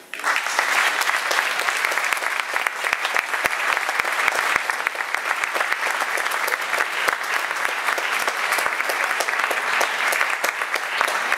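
Audience applauding: dense, steady clapping of many hands, starting abruptly just as it begins.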